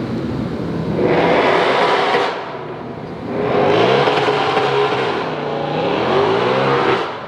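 Car engine revving hard in two runs, the first about a second in and the second from about three and a half seconds, its pitch sliding down and back up before it drops away near the end.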